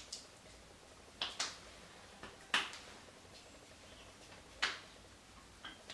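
Faint soft pats of hands on damp skin as toner is patted into the face: about five short, irregular slaps spread over a few seconds, with low hiss between them.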